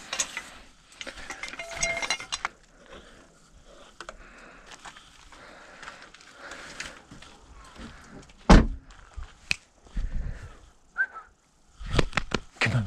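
Handling noises: a run of knocks, clatters and rattles, with a heavy thump about eight and a half seconds in and more thumps near the end.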